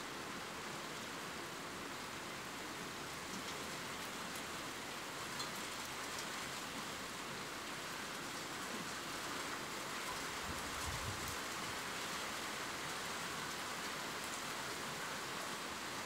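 Steady rain falling, an even hiss with scattered individual drop ticks. A brief faint low rumble comes about two-thirds of the way through.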